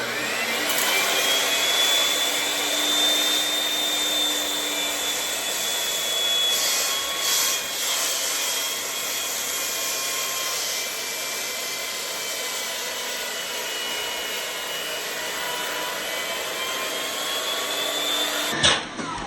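Beam saw (giant circular saw with a 16-inch blade) running: the motor's whine rises quickly as it spins up and then holds steady. Near the end the pitch drops fast as the electric brake stops the blade.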